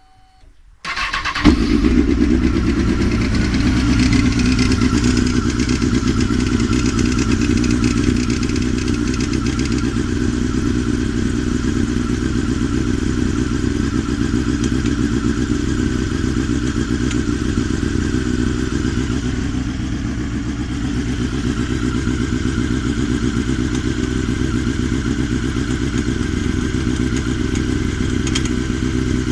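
Honda CBR954RR inline-four engine starting about a second in, then idling steadily.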